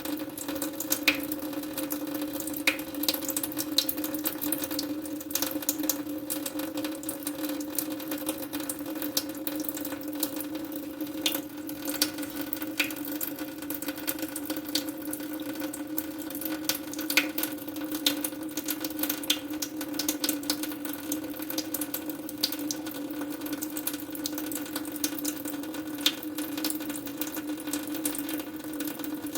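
Tap water running steadily into a sink, a continuous wash with a steady low tone under it and scattered sharp ticks of droplets.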